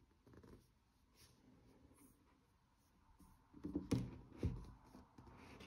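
Hands handling a tablet and its cardboard box: faint rubbing and scraping, then a few soft knocks and clicks about four seconds in.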